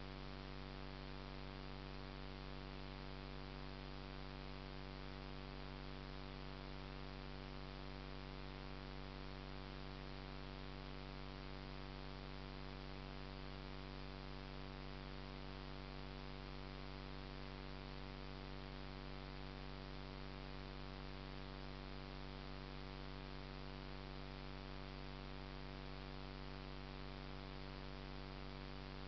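Steady electrical hum of several fixed tones over a light hiss, unchanging throughout.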